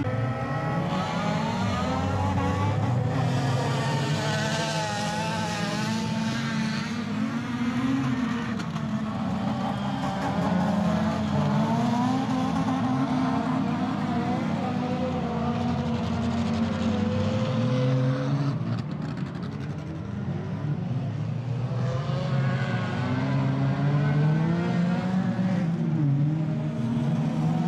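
Engines of several near-stock autocross race cars revving hard, their pitch rising and falling again and again as the cars accelerate, shift and back off, with a brief dip about two-thirds through.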